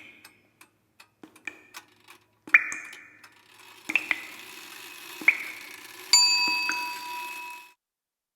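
Sparse ticks and light metallic dings, several with a short ringing tail, over a soft hiss that swells about four seconds in. Near the end a longer bell-like chime rings out and fades away.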